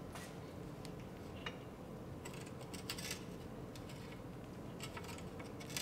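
Faint metallic clicks and clinks of a long wrench on an inner tie rod end tool as a new inner tie rod is tightened into the steering rack, in small clusters about two to three seconds in and near the end, over a steady low shop hum.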